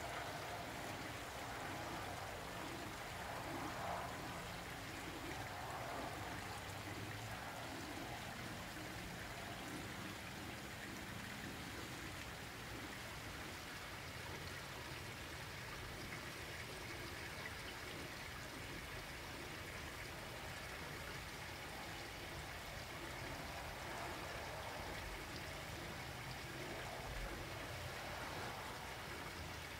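Faint, steady trickle and splash of water from a small rock waterfall running into a garden pond.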